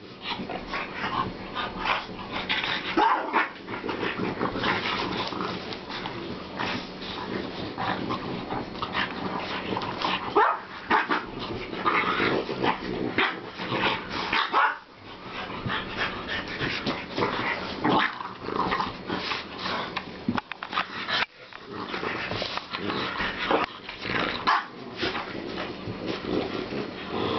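Several French bulldogs play-fighting, growling almost without pause, with short barks and yips mixed in.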